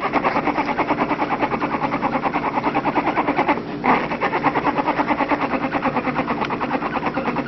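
A sleeping pet snoring with a fast, steady rattle, broken by a short pause about three and a half seconds in and then a louder rasp.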